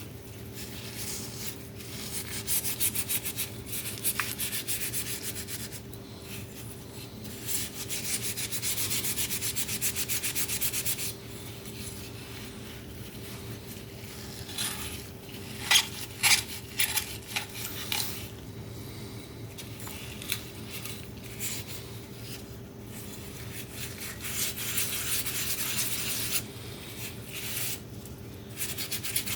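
Rubbing and scraping strokes on a hard object, coming in spells of a few seconds, with a few sharp clicks about halfway through. A faint steady hum lies underneath.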